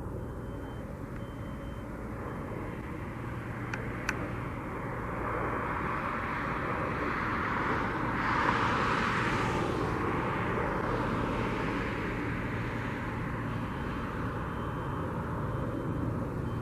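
Airplane passing overhead: its engine noise swells to a peak about halfway through and then fades away over several seconds, over a steady low hum.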